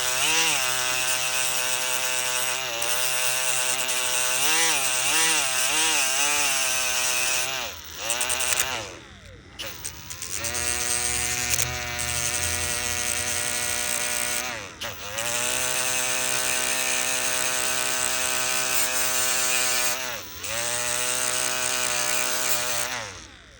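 Small high-speed electric grinder whining in four runs with short stops between, its pitch dipping and recovering as it bears on the metal. It is grinding down a part of a GM ignition switch that still sticks up and catches.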